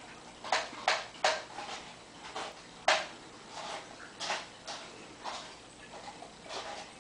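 A German Shepherd-type dog gnawing a bone: irregular sharp cracks and crunches of teeth on bone, now and then two or three within a second, the loudest about three seconds in.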